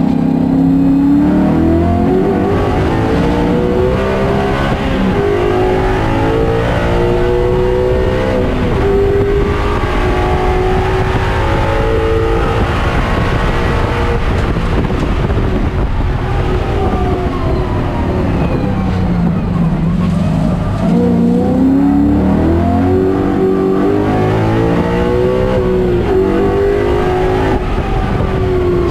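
A race Mustang's Coyote-swapped V8 heard from inside the cockpit, pulling hard from a slow corner and rising in pitch through several upshifts. About halfway through, the pitch falls under braking and downshifts, then climbs again through the gears before dropping near the end.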